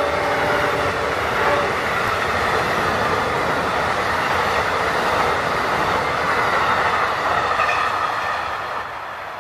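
Amtrak passenger train's cars rolling past on the rails, then drawing away; the level drops near the end as the last car goes by.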